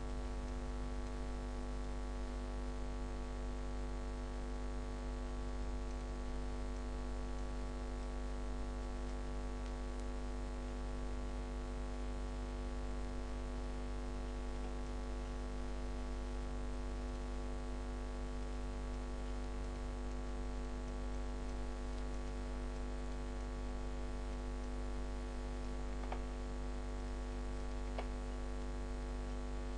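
Steady electrical mains hum with many harmonics, over a light hiss, from the recording chain. Two faint clicks sound near the end.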